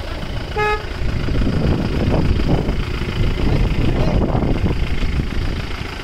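One short toot of a car horn about half a second in, followed by the low, steady rumble of a Mahindra Bolero SUV's engine running.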